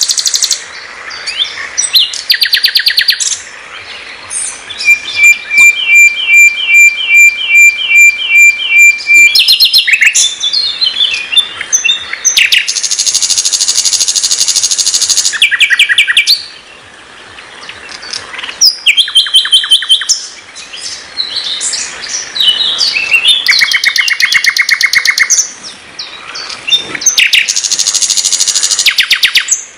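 Nightingale (sikatan londo) singing a varied song in separate phrases of rapid trills, whistles and repeated notes, with brief pauses between them. One phrase is a slower run of about nine loud repeated notes.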